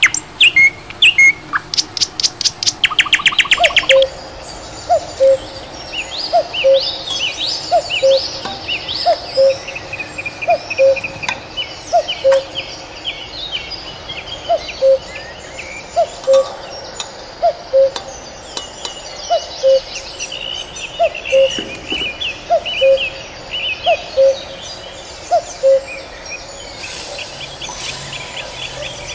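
Birds chirping. A rapid trill is heard in the first few seconds; after that one bird repeats a short upward chirp about every three-quarters of a second while others twitter higher.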